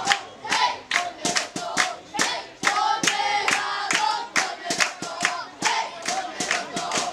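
Football supporters chanting in rhythm with quick, even hand claps. A long held shout sounds about three seconds in.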